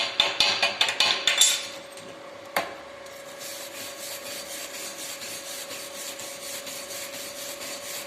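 A steel weld bead being cleaned: a quick run of sharp metal-on-metal strikes and scrapes, one knock about two and a half seconds in, then fast, even scrubbing strokes of a wire brush on the steel. A steady hum runs underneath.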